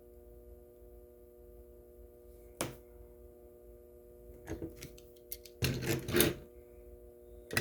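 Light clicks and a short scraping rattle of a die-cast toy car being handled and set on a small display turntable, over a faint steady hum.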